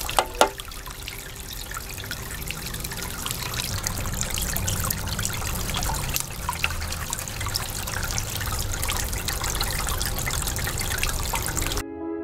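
Water trickling and splashing, with fine drips and a couple of small knocks about half a second in. Background music comes in right at the end.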